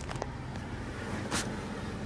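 Handling noise as a handheld camera is moved around a pickup truck's cabin: a few light clicks and a short scraping rustle about two-thirds of the way through, over a low steady rumble.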